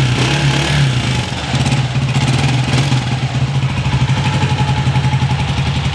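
Honda CG125's single-cylinder four-stroke engine idling steadily with an even beat, heard after its tappet and cam noise has been repaired.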